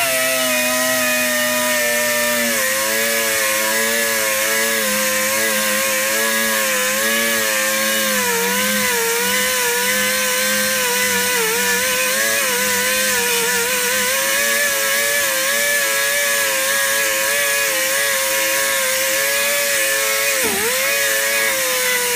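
Ingersoll Rand air die grinder running at speed with a 3M Roloc bristle disc scrubbing paint and rust off sheet steel: a steady high whine over a hiss. The pitch sags and wavers as the disc is pressed into the metal, with a brief dip near the end.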